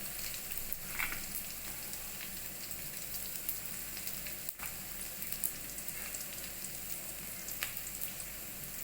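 Chopped onions frying with cumin in hot oil in a kadhai, a steady sizzle with scattered crackles and an occasional sharper pop.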